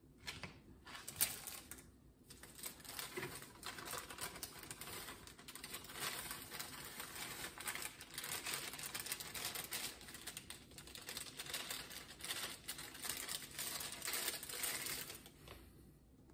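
Plastic bag crinkling and rustling in a dense run of quick crackles as it is handled over a mixing bowl, dying down near the end.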